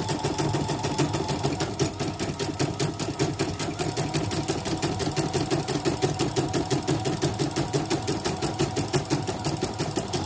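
CNY portable embroidery machine, running with its side cover off, stitching a test design: the needle mechanism goes in a rapid, even rhythm with a steady motor hum underneath. This is a test run during repair.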